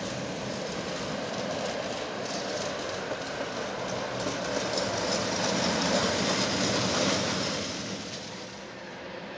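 Ex-Soviet tram running along street track, its wheels rumbling and clattering on the rails. The sound grows louder to a peak about six to seven seconds in, then drops away.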